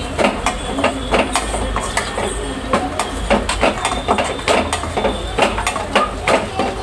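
Metal spatula scraping and clinking against a steel pan as coarsely ground chana dal is stirred and fried in oil: irregular scrapes, about three a second, over a steady frying hiss.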